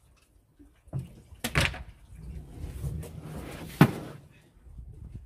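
A plastic fish crate full of fishing net being lifted out of a small boat and set down on the dock: a few knocks and thumps with rustling in between, the loudest thump a little before the end.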